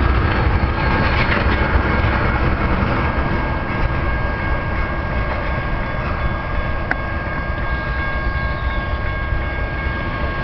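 Freight train of tank cars rolling past on the rails: a steady rumble and wheel noise that slowly eases off. From about two seconds in there are steady high ringing tones, and there is one sharp click near the seven-second mark.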